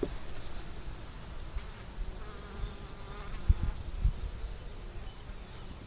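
Honeybees buzzing over an opened hive as a frame is pried up and lifted out, the buzz wavering in pitch about halfway through. A couple of short low thumps come a little after the middle.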